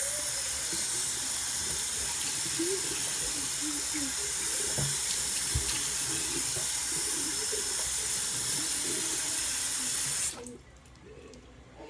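Bathroom sink tap running steadily into the basin while water is splashed onto a face; the tap is shut off suddenly about ten seconds in.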